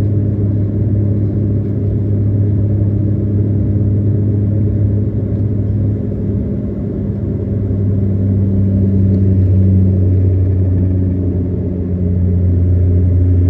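Steady low engine drone of a SpiceJet airliner heard from inside the cabin after takeoff, with a deep hum and a few steady tones above it. It swells slightly about two-thirds of the way through and again near the end.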